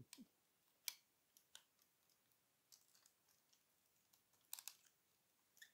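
Near silence broken by a few faint clicks of hard plastic toy parts as a vintage Transformers G1 Sixshot figure is handled, with a small cluster of clicks about four and a half seconds in.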